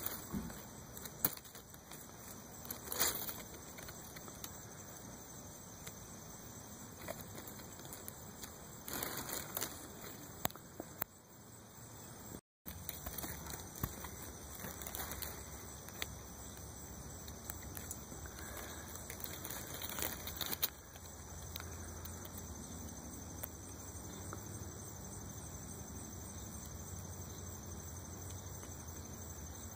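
Faint outdoor background noise with scattered soft clicks, a brief dropout a little before halfway, and a steady low hum from about two-thirds of the way in.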